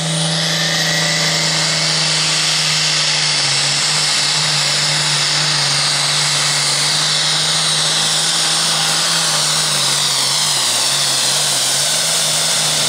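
International Pro Farm pulling tractor's turbocharged diesel running flat out under load on a pull, with a high turbo whine that rises in the first second. The engine note sags somewhat near the end.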